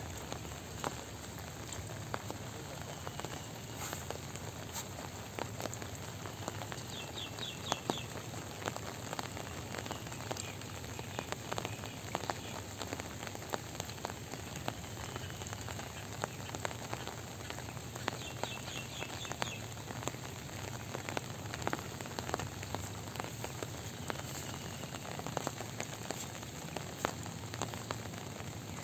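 Light rain falling, a steady soft patter with scattered drop ticks. A short high chirping call cuts through three times, about seven seconds in, around eighteen seconds and at the very end.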